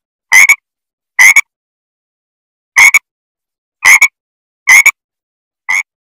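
A frog croaking: six short calls, roughly one a second, each a quick double note with silence between.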